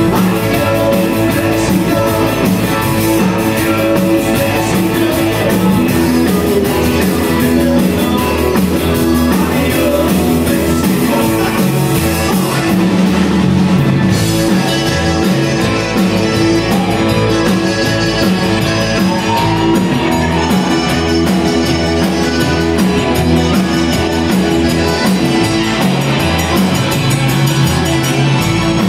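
Live Tex-Mex band playing with accordion, electric guitars, keyboard, bass and drum kit, and a man singing lead.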